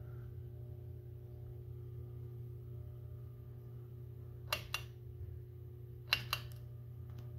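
Crest 4500 ceiling fan's motor humming steadily at its lowest variable speed. Two pairs of short sharp clicks come about four and a half and six seconds in.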